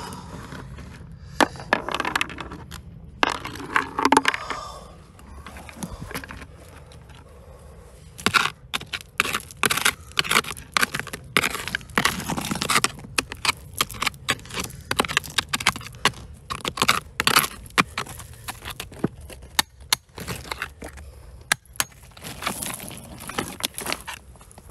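Rocky soil and stones being dug and scraped by hand: irregular crunching and scraping with many sharp clicks of stone on stone, busiest from about a third of the way in.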